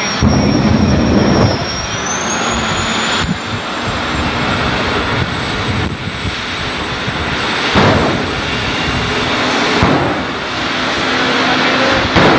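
Jet-powered drag vehicle's turbine engine running loud, its high whine rising in pitch about two seconds in, with louder surges near the start and again about 8, 10 and 12 seconds in.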